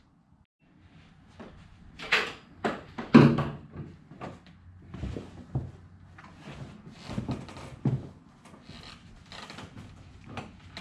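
Trunk carpet being handled and fitted back into a car's rear cargo area: rustling with a series of irregular knocks and thumps, the loudest about three seconds in.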